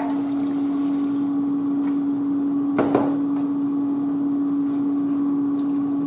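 Water poured from a measuring cup into a saucepan of dirty rice mix and browned ground beef, with a short knock about three seconds in, over a steady hum.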